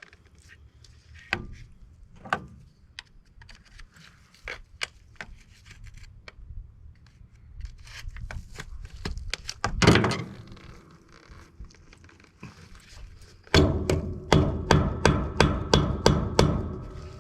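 Hammer blows on metal parts of an air conditioner unit being dismantled: scattered knocks and clanks, one heavy blow about ten seconds in, then a quick run of ringing metal strikes, about three a second, near the end.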